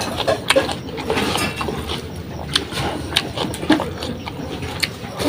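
A person eating close to the microphone: chewing and mouth sounds with many short, sharp clicks at irregular intervals.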